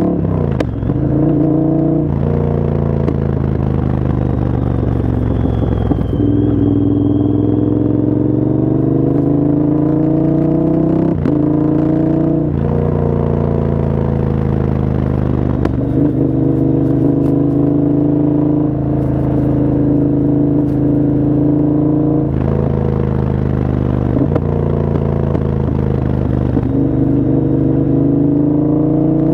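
Moto Guzzi V100's V-twin through an aftermarket exhaust, ridden under load: the engine note climbs slowly and then drops abruptly several times, as at gear changes.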